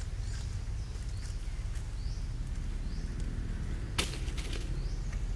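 Outdoor ambience: a steady low rumble under a short, high, rising chirp that repeats about twice a second, with one sharp click about four seconds in.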